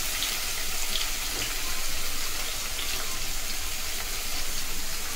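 Chopped onion, garlic, ginger, tomato and capsicum sizzling in hot oil in a kadhai, a steady frying hiss.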